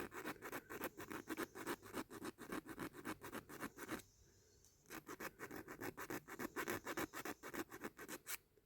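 Hand file rasping on a die-cast metal toy car part in quick back-and-forth strokes, about four a second, with a short pause near the middle.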